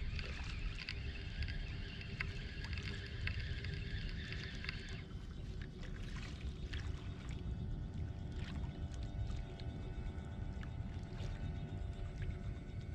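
A steady low rumble of wind on the microphone. Over it, a high whirring whine, the fishing reel's spool turning, runs for about the first five seconds and then cuts off abruptly.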